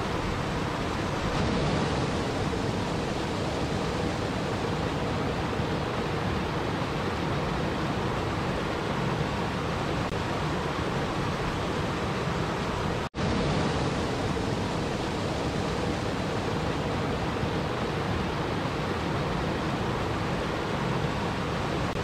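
A small waterfall steadily rushing as water cascades over rocks, with a momentary dropout about thirteen seconds in.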